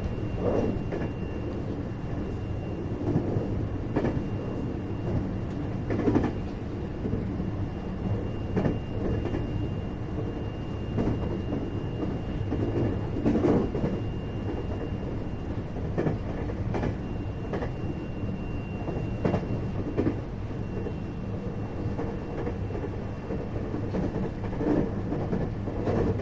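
Running noise inside a 521 series electric multiple unit's motor car (KuMoHa 521) at speed: a steady rumble of wheels and traction motors with a thin steady high tone. A knock comes every two seconds or so as the wheels cross rail joints.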